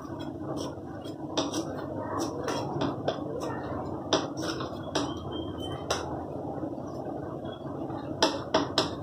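Knife chopping a bunch of fresh coriander against a hard surface: sharp, irregular taps, with a quick cluster near the end, over steady background noise.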